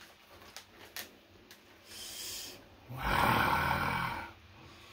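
A man's loud, raspy, breathy exclamation, like an excited gasp or laugh, lasting about a second past the middle, after a few faint clicks and a soft rustle.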